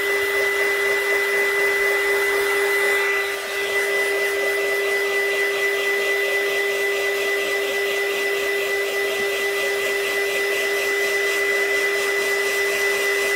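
Handheld heat gun running steadily: a rushing blow of air with a steady whine, dipping briefly in level about three and a half seconds in.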